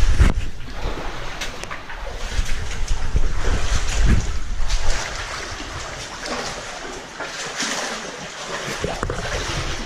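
Cave stream water rushing and splashing, with heavy low rumbling knocks of handling or wind noise on the microphone during the first half that ease off after about five seconds.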